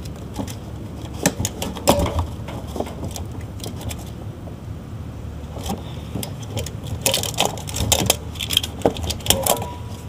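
Handling noise from a refrigerant charging hose and gauge manifold being worked by gloved hands: scattered clicks, knocks and rustling that grow busier near the end, over a steady low hum.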